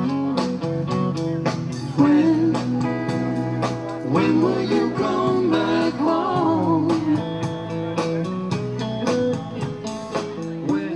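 A song with plucked guitar and a singing voice, the vocal line bending through the middle.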